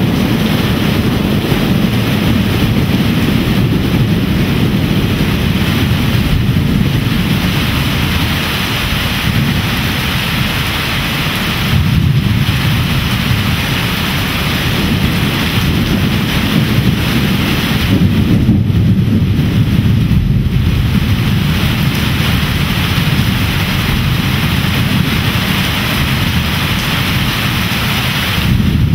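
Heavy downpour in a thunderstorm: a dense, steady hiss of pouring rain with a low rumble under it, swelling slightly a few times.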